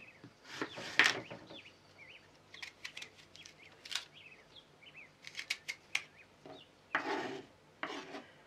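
Kitchen knife cutting a crisp apple on a wooden cutting board: crunchy slices and sharp taps of the blade on the board, the loudest about a second in.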